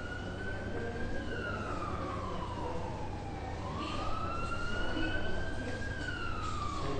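Emergency-vehicle siren wailing, its pitch slowly rising and falling, peaking about a second in and again near the end, over a steady low hum.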